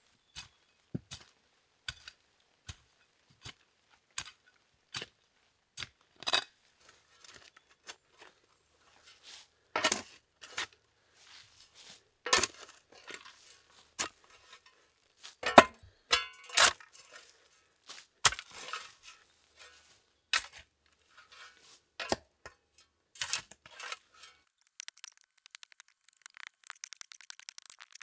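Metal shovel blade digging into stony woodland soil: a series of sharp chinks and scrapes as it strikes stones and earth, about one a second at first, then heavier clustered strokes. Near the end comes a dense patter of small crackles as loose soil and debris are moved.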